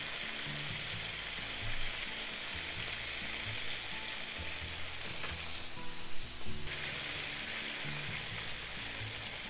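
Tofu cubes deep-frying in hot oil: a steady crackling sizzle, with a brief dip in the hiss and a few louder knocks about six seconds in.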